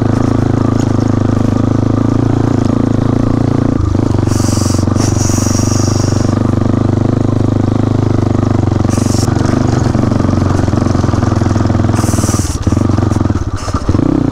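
Motorcycle engine running at a steady pace while riding, dipping briefly about four seconds in and again near the end, with short hissing bursts now and then.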